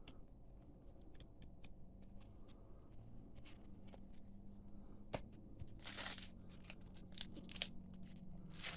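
Trading card booster packs being handled: faint clicks and rustles of cards, with two short tearing swishes of a pack wrapper, one about six seconds in and one near the end.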